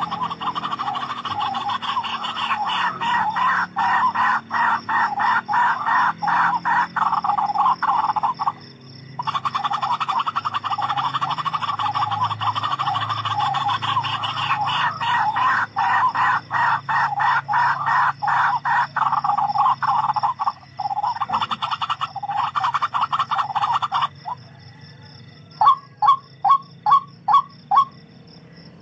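Tikling (rail) calling: a long, rapid run of harsh repeated notes with a brief break about nine seconds in. Near the end it changes to separate, falling notes about two a second.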